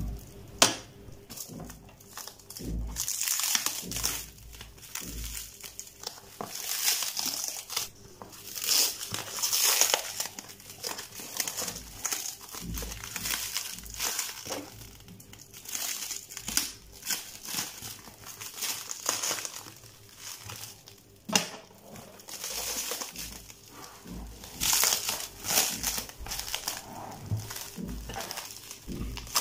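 Plastic shrink wrap being peeled and pulled off a cardboard box, crinkling and crackling in irregular bursts, with a few sharp clicks.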